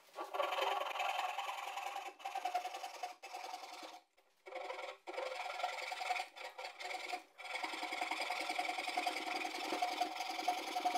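Hand saw cutting a birdsmouth notch into a timber rafter: steady back-and-forth rasping strokes with a few short breaks, one about four seconds in.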